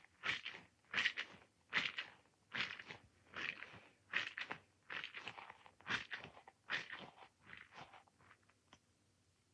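A squishy toy ball being squeezed over and over, each squeeze a short crackly squelch, about one a second. The squeezes get fainter near the end.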